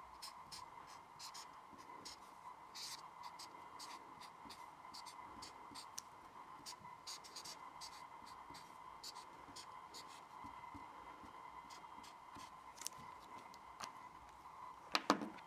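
Felt-tip marker squeaking and scratching across a paper memo pad in short strokes as words are written, over a faint steady high tone. Near the end come a few sharper, louder clicks.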